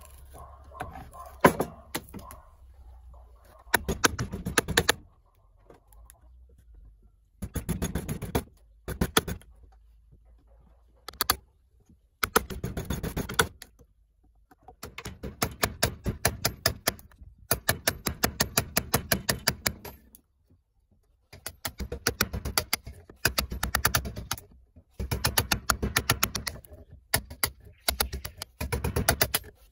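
Steel wood chisel cutting and splitting waste wood from a saw-handle blank held in a vise, in about a dozen bursts of rapid sharp taps, each burst lasting one to two seconds, with short pauses between them.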